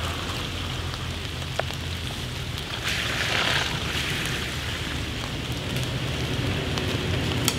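Steady rain hiss with the low rumble of a 4x4 SUV's engine as it rolls slowly along a wet dirt trail. The hiss swells briefly about three seconds in.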